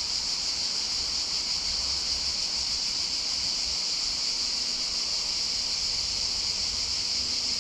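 Steady, unbroken high-pitched insect chorus, with a low rumble underneath.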